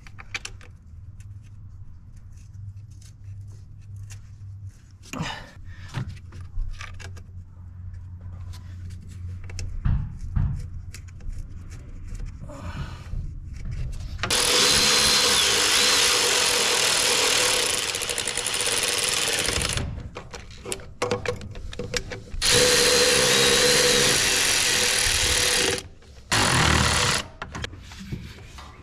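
A power tool running in steady stretches: first about five seconds, then about three seconds after a short pause, then a brief burst, each with a steady whine and each starting and stopping abruptly. Before the first run there are only light clicks and rattles of parts being handled.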